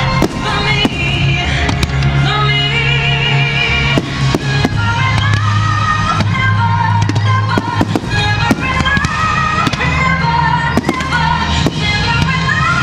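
Fireworks display: aerial shells bursting with many sharp bangs in quick, irregular succession over loud music with a sustained bass line.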